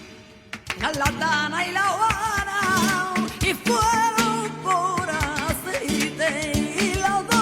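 Flamenco song: a singer's long, wavering line with ornamented turns over acoustic guitar. The voice comes in about a second in, after a brief lull.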